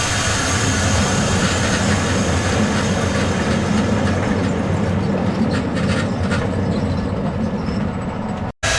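Heavy sawmill machinery running steadily: a low drone with a hiss over it and a few light knocks after the middle, cut off for an instant near the end.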